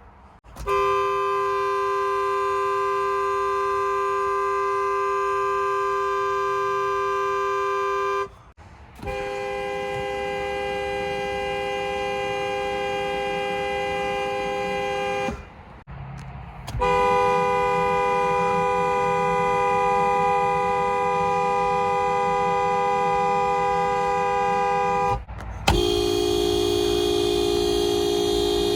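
Car horns held down in long, steady honks, one after another with short breaks: three honks of about six to eight seconds each, all sounding two notes at once at the same pitch, then a lower-pitched horn near the end.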